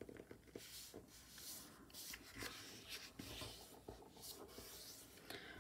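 Faint rustling and rubbing of a 6x6 sheet of patterned paper being folded corner to corner by hand, with several soft strokes as the fold is creased.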